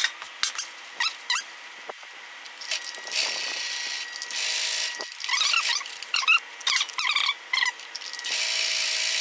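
Electric home sewing machine stitching a seam through marine-grade vinyl in short runs, the two longest about a second each, one near the middle and one at the end, with high squeaks and clicks in between.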